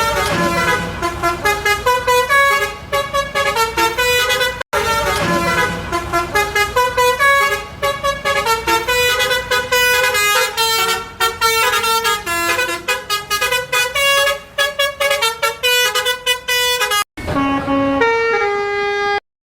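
Tour bus 'telolet basuri' musical air horn playing fast, jumping multi-note melodies over a low engine rumble. The sound breaks off abruptly twice, about five seconds in and near the end, as one horn clip gives way to another.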